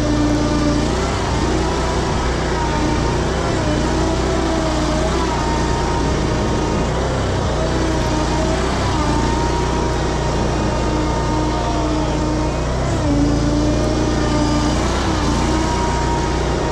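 Hustler zero-turn mower running hard, its engine pitch dipping and rising under strain as the rear tires spin in mud while it tries to drive out of being stuck.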